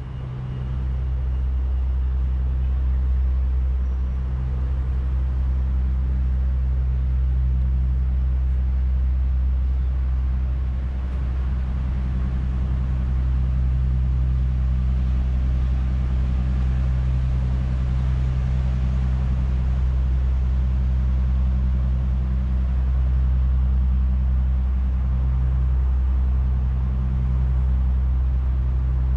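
A steady low engine hum that holds the same pitch and level throughout.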